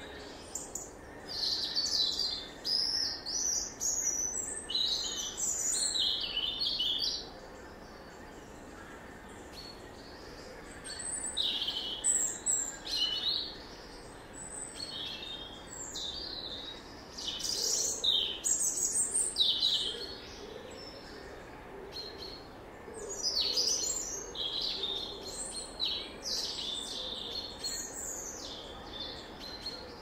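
Wild songbirds singing high-pitched phrases in four spells of a few seconds each, with short pauses between, over a faint steady background noise.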